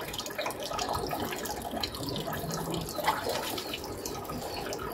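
Knife cutting raw chicken on a small wooden board: soft, irregular clicks and taps over a steady hiss.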